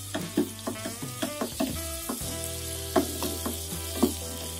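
Long beans and leafy greens stir-frying in a wok with a steady sizzle, while a spatula scrapes and clacks against the pan in irregular strokes, two louder knocks about three and four seconds in. Background music plays underneath.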